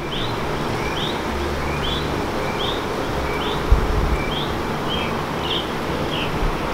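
A small bird repeating a short, high chirp about twice a second, over a steady background rush. A single low thump comes a little under four seconds in.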